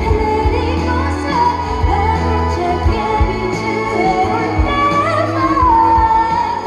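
A female singer sings a Korean pop ballad live over amplified band accompaniment, holding long notes over a steady low bass.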